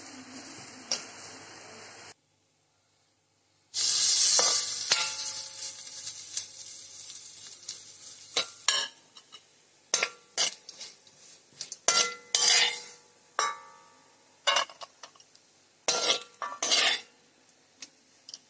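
Chopped coconut pieces sizzling as they fry in a pan, stirred with a metal spoon. After a short silent gap, a loud sizzle starts about four seconds in, followed by repeated sharp scrapes and clinks of the spoon against the pan.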